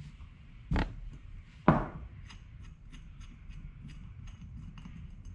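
Small metal knocks and clicks as a 10 mm spanner works on the main jet fitting of a Mikuni BS38 carburettor float bowl. There are two sharper knocks about a second apart, then a run of faint ticks, about three a second, as the part is turned.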